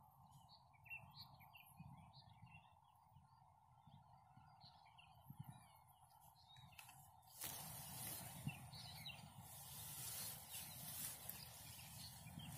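Faint chirping of small birds, a quick jumble of short high calls through the first half. About seven seconds in, a louder, even background noise rises and the chirps grow sparse.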